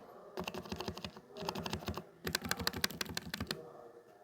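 Mechanical keyboard keys clacking in quick runs of presses, three bursts separated by short pauses.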